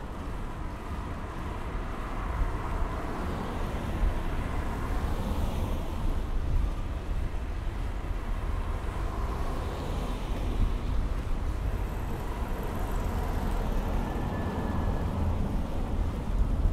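Street ambience: an uneven low rumble of wind on the microphone over light road-traffic noise.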